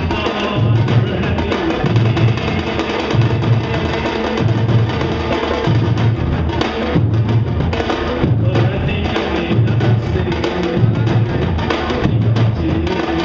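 Samba-reggae drum line playing: surdo bass drums beat a steady low pulse, a little more than one beat a second, under the busier strokes of the timbau and repinique.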